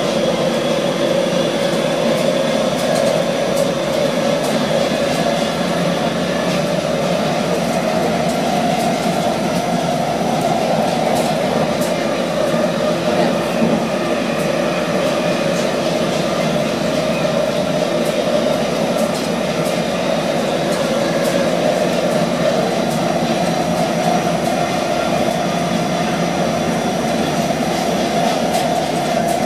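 Inside an NFTA Metro Rail light-rail car running along the line: a loud, steady rumble of wheels and motors with a droning tone that drifts slightly up and down in pitch, and a few faint clicks.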